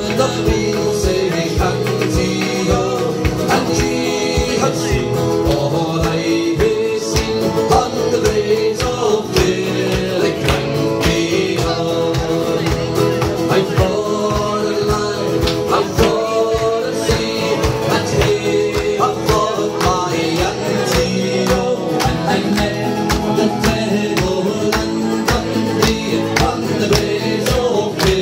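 Background music: a song with singing, guitar and a steady beat.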